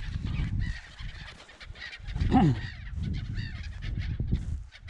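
Gulls calling in alarm over their nesting colony, many short harsh calls overlapping, with wind rumbling on the microphone.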